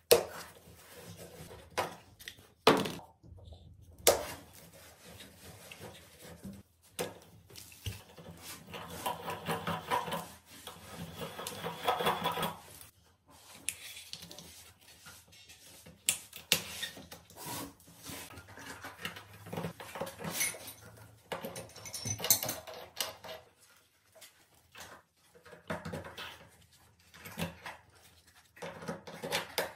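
Chrome escutcheon plates and angle stop valves being fitted by hand onto copper stub-out pipes: scattered metal clicks and knocks, the sharpest in the first few seconds, with stretches of rubbing and scraping.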